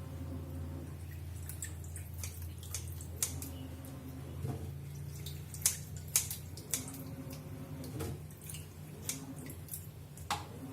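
Raw shrimp being peeled by hand in wet conditions: irregular light clicks and drips of water, over a steady low hum.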